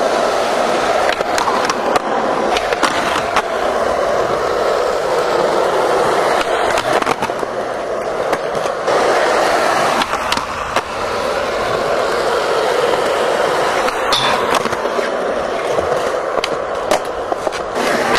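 Skateboard wheels rolling on smooth concrete, a steady rumble, broken every few seconds by sharp clacks and knocks of the board hitting the ground or a ledge.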